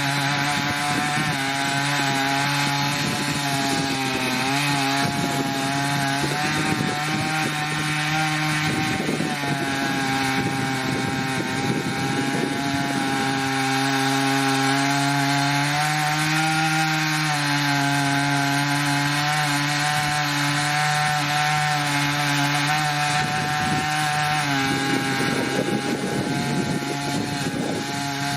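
Stihl MS880 two-stroke chainsaw running steadily under full load, its long bar ripping lengthwise through a red oak log in an Alaskan chainsaw mill. The engine note holds nearly level, with a slight wavering in pitch and a brief rise around the middle.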